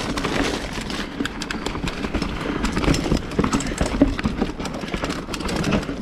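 Mountain bike rolling fast down a rough dirt and root singletrack: tyre noise and rumble from the trail with a constant irregular run of clicks and knocks as the bike rattles over the bumps.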